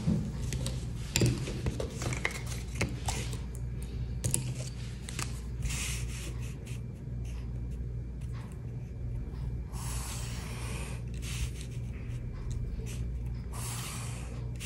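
Red felt-tip pen drawn along a cardboard straightedge on notebook paper: two longer scratchy strokes in the second half, after scattered clicks and rubbing as the strip is handled on the page. A steady low hum runs underneath.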